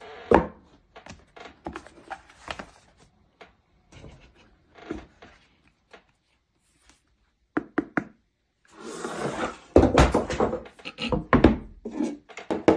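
Packaging handling sounds: a cardboard box lid sliding off and a rugged tablet's hard rubber-and-plastic case lifted out, with scattered rustles and knocks. About two thirds of the way in, several sharp clicks, then a dense run of louder knocks and thuds as the tablet is handled against the box and the wooden table.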